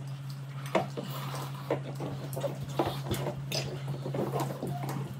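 Light clinks and knocks of dishes and utensils, scattered irregularly, over a steady low hum.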